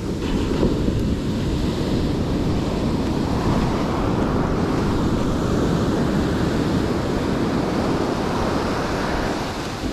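Ocean surf washing on the beach, mixed with wind buffeting the microphone in a steady low rumble.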